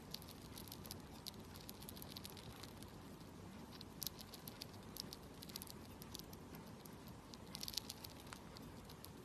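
Hamster eating, its teeth crunching and nibbling food in rapid, irregular small clicks, with denser bursts about four seconds in and again near eight seconds. A faint steady rush of typhoon wind and rain runs underneath.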